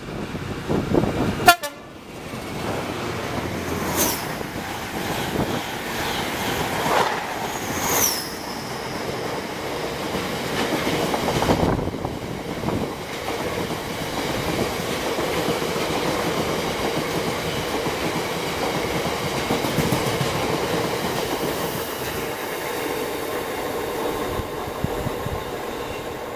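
A freight train passing at speed behind a Class 66 diesel locomotive: a sharp loud burst as the locomotive goes by about a second and a half in, then a long rake of bulk tank wagons rolling past with steady wheel rumble and clickety-clack. Two brief high squeals come from the wheels about four and eight seconds in.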